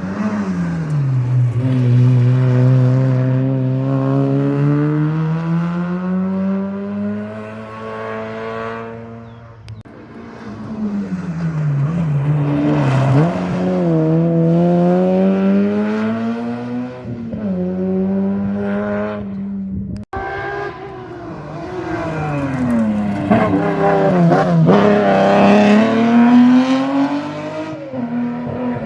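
Rally car engines at full throttle, pitch climbing and dropping through gear changes and lifts as the cars drive a stage. Three separate passes follow one after another.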